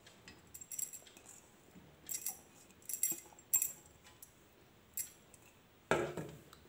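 Light metallic clinks of two steel bowls knocking together, half a dozen separate clinks, as chopped boiled bamboo shoot is scraped out of one bowl into rice batter in the other. A duller knock comes near the end.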